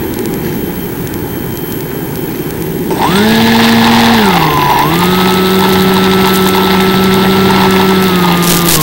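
Mini Skywalker RC plane's electric motor and propeller buzzing in flight. The buzz comes in about three seconds in, dips in pitch about midway, then holds steady. Before it there is only a steady hiss like wind.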